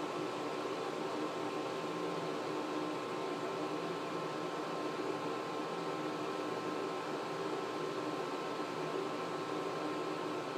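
Steady mechanical whir: an even hiss with a hum of several constant tones, unchanging.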